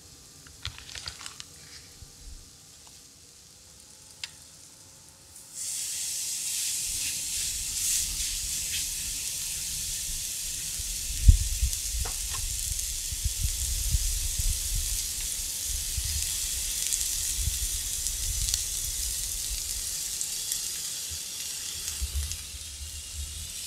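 Steak and cubed sweet potatoes sizzling on a hot electric griddle. The sizzle starts suddenly about five seconds in and then holds steady. There are a few dull low thumps partway through, the loudest about eleven seconds in.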